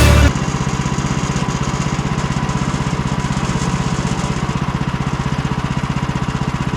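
Portable band sawmill's small gasoline engine running steadily with an even, rapid pulse. Music cuts off just after the start.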